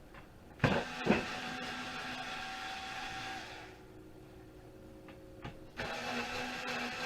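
Two sharp knocks, then a small electric motor runs with a steady hum for about three seconds and stops. Two more knocks follow and the motor starts again near the end.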